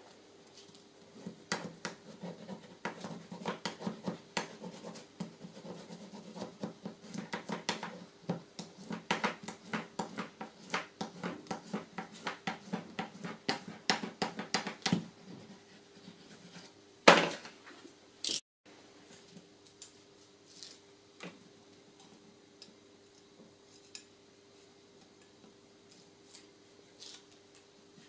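Bone folder scraping and creasing folded paper strips on a cutting mat in quick, repeated strokes. About halfway through the strokes stop, a loud knock follows, then a sharp click a second later, and after that only occasional light taps.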